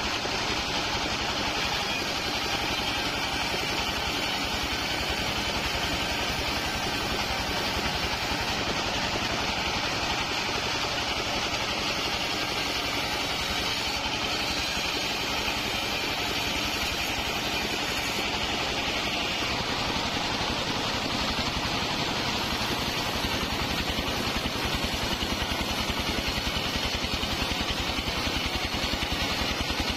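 Engine-driven portable bandsaw sawmill running steadily as the blade cuts through waru wood. Even mechanical noise throughout, with the engine's regular firing pulses showing more plainly in the latter half.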